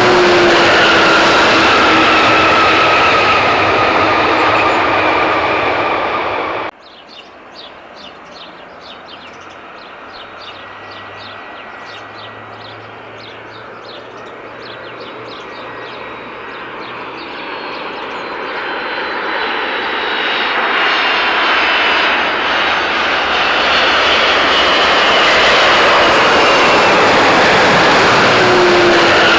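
An airliner's engines passing close and loud, their tones falling in pitch as it goes by, cut off suddenly about seven seconds in. After a quieter stretch with faint high chirps, another aircraft is heard approaching, its engine noise swelling steadily until it is loud again near the end.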